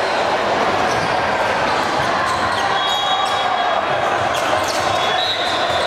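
Volleyball rally in a large gym hall: ball hits and knocks ring out over a steady din of voices from the hall, with several short high shoe squeaks on the hardwood floor.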